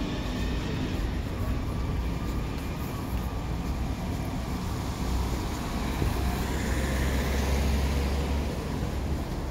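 Road traffic on a city street: a motor vehicle's low rumble, swelling for a few seconds about two-thirds of the way through.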